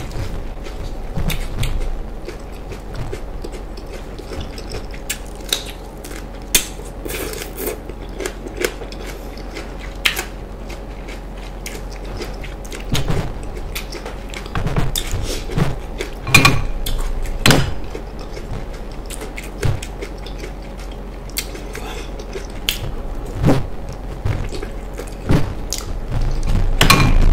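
Close-miked eating sounds: chewing and biting of food, with scattered sharp clicks and wet smacks, over a faint steady hum.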